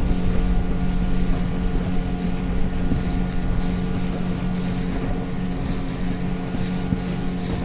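Motorboat engine running at a steady speed, heard from aboard, with a constant hum over the rush of water and wind.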